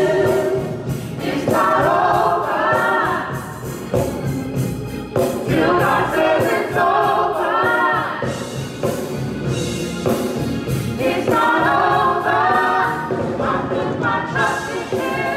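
Gospel singing by a small vocal group at microphones, several voices together.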